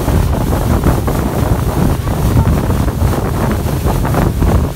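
Wind buffeting the microphone on a fast-moving motorboat, over the rush of water and wake spray along the hull.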